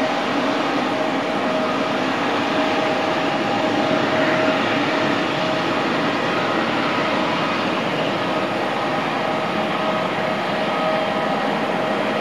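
Boeing 777's twin jet engines at taxi power as the airliner rolls past. The noise is a steady rush, with a few faint held whining tones.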